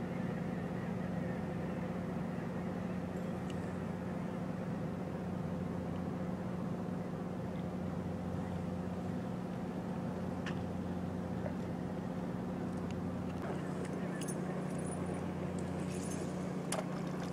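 Steady low drone of an engine running at a constant speed, with a strong even hum. Faint short ticks come in near the end.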